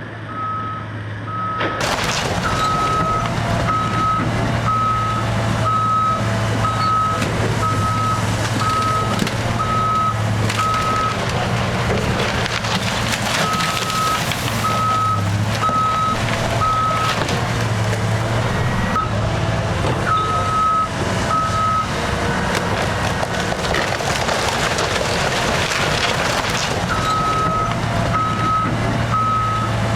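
Heavy demolition machinery at work tearing down a house: a diesel engine running steadily, a reversing alarm beeping about once a second in runs with pauses, and the continuous crunching and crashing of the structure and debris being broken up.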